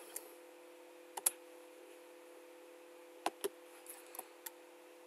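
Scattered computer keyboard keystrokes, about eight clicks in small groups, over a faint steady hum.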